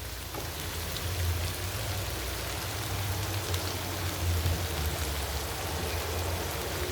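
Vegetables stir-frying in oil in a pan, sizzling steadily, with a low steady hum underneath.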